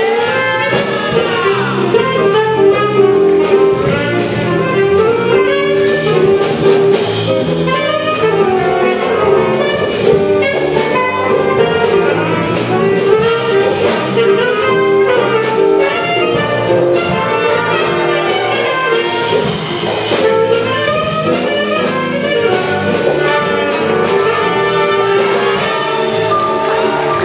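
Amateur wind band playing a jazz-style arrangement, saxophones and brass to the fore over a steady beat; a solo flute comes in near the end.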